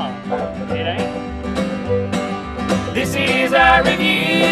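Bluegrass band playing an instrumental passage: acoustic guitars strumming over upright bass, with fiddle, in a steady rhythm.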